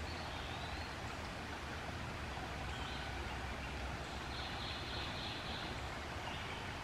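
Steady rush of a flowing stream with a low rumble underneath, and a few faint, high bird calls now and then.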